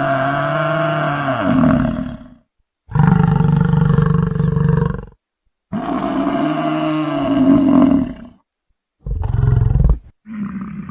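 A run of deep, growling bull-like bellows: five calls, each about one to two and a half seconds long, with short gaps between them.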